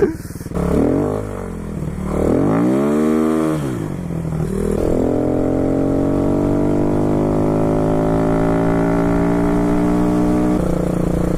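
Motorcycle engine revving up and dropping back twice, then pulling steadily with its pitch slowly rising as it accelerates in gear. The note changes about ten and a half seconds in.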